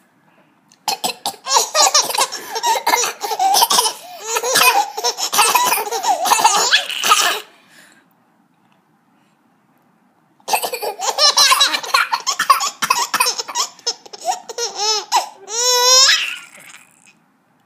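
Baby laughing hard in two long bouts of several seconds each, with a pause of a few seconds between them; near the end the laugh rises into high squeals.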